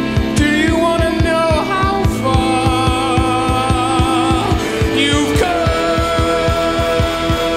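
Rock band playing live: drums keep a fast steady beat of quick hits under synthesizer, electric guitar and long held notes that slide up in pitch about half a second in and again about five seconds in.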